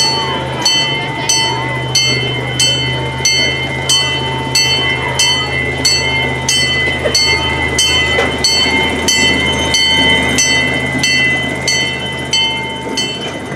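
A bell ringing steadily, about three strikes every two seconds, over the low steady running of a miniature C.P. Huntington replica train as it pulls into the station.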